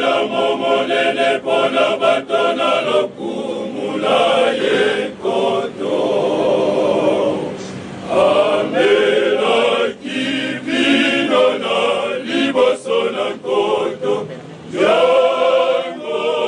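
Male choir singing a cappella in several voices, in phrases broken by short pauses.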